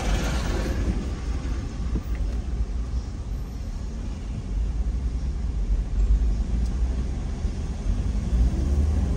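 Steady low rumble of a car's engine and tyres, heard from inside the cabin while driving slowly in city traffic.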